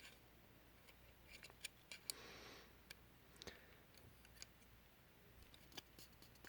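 Faint scattered clicks and taps from a 1:18 diecast model car being handled, with a short soft rustle about two seconds in.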